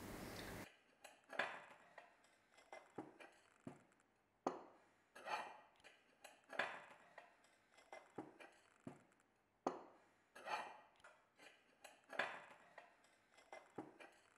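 Faint, irregular clinks of ceramic bowls and plates, about one a second, each ringing briefly.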